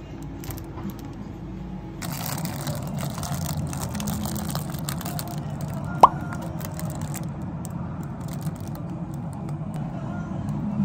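Thin plastic bread wrapper crinkling as a bun is handled and torn open inside it, over a low steady hum, with one sharp click about six seconds in.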